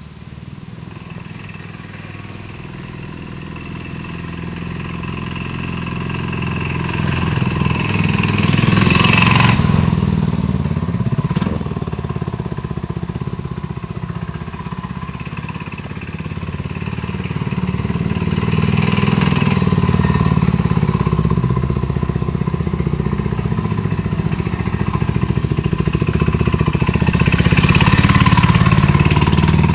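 1973 Harley-Davidson SX350's single-cylinder engine as the motorcycle is ridden in loops. Its sound swells as it comes close and fades as it moves off, three passes about ten seconds apart, the last near the end.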